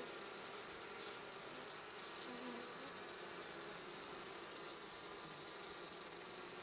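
Honeybees buzzing at a hive entrance: a faint, steady hum of many bees, with short louder buzzes now and then as single bees pass close.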